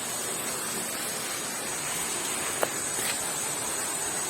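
Steady hiss of background noise with a brighter high edge, broken once by a short click a little past halfway.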